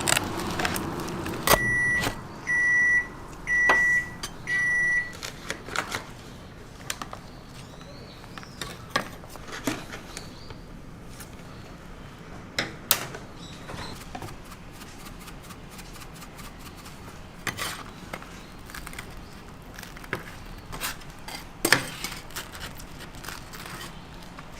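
An electronic kitchen appliance beeps four times, about once a second, then light clicks and knocks follow at irregular intervals.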